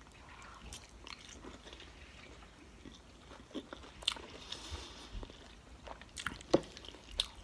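Close-up chewing of a mouthful of sauced orange shrimp, with biting and crunching sounds and a few sharp clicks, the loudest about six and a half seconds in.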